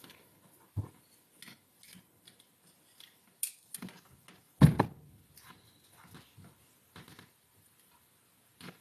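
Wire crimping tool being worked on electrical connectors: scattered small clicks and handling noises, with one louder clack a little under five seconds in.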